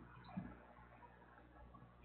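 Near silence: a faint steady low hum with two faint ticks, at the start and about half a second in.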